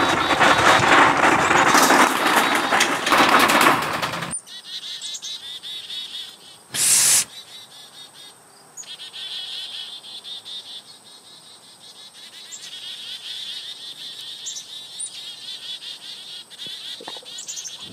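A metal shopping cart rolling over pavement, rattling loudly, which cuts off about four seconds in. Quiet outdoor sounds follow: insects chirping with a thin steady high whine and scattered bird chirps, broken once about seven seconds in by a short, loud burst of noise.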